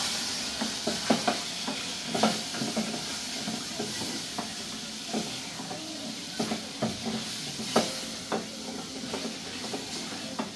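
Onions and garlic sizzling in a cooking pot while being stirred, with scattered clicks and scrapes of the spoon against the pot.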